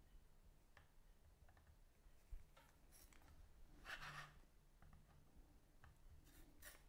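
Near silence, with faint light clicks and soft scrapes from a small screwdriver turning screws into a telescope focuser's metal adapter ring.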